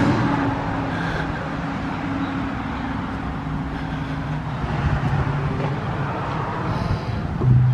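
Road traffic: a passing vehicle's engine fades away into steady road noise. Right at the end a low musical note begins.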